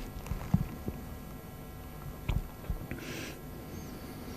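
Quiet hall room tone between sentences, with a few soft knocks and a short hiss about three seconds in.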